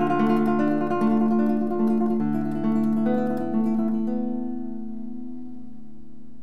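1961 José Ramírez 1a spruce-top classical guitar played fingerstyle: a line of plucked notes over a held bass, ending about four seconds in on a final chord that rings on and fades out.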